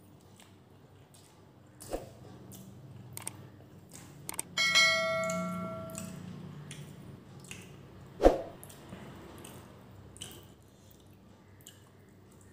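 Subscribe-button sound effect: a click, then a bell chime that rings and fades over about a second and a half, about four and a half seconds in. Quiet chewing and wet mouth sounds of eating run underneath, and a single sharp thump comes a little past eight seconds.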